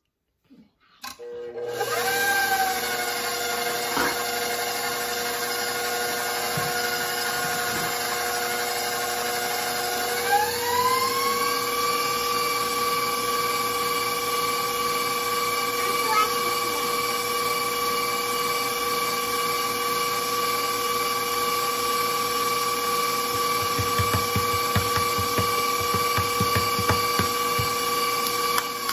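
Stand mixer motor starting up and running, its wire whisk beating cookie batter in a stainless steel bowl. The steady motor whine steps up to a higher pitch about ten seconds in as the speed is raised.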